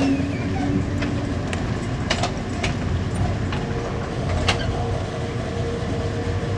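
Interior rumble of an Amtrak Amfleet I passenger coach rolling into a station, with scattered sharp clicks and knocks from the running gear over the track. A faint steady tone comes in about two-thirds of the way through.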